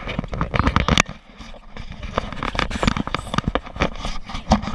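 Handling noise from a small handheld camera being gripped and tumbled in someone's hands: a dense, irregular run of knocks, scrapes and rustles right on the microphone, briefly quieter just after a second in.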